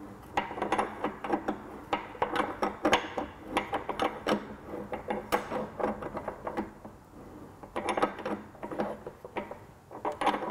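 Irregular metallic clinks and knocks of a steel hand tool working on a Vespa's upper steering-head bearing race, as the fork bearing tool is fitted into the race's slots and turned.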